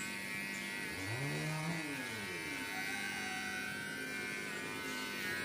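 Small battery-powered electric hair trimmer running with a steady buzz as it cuts the hair around a child's ear.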